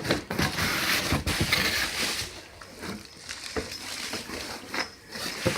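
Rustling and clicking as tools and their packaging are handled, busiest in the first two seconds, then scattered clicks and knocks.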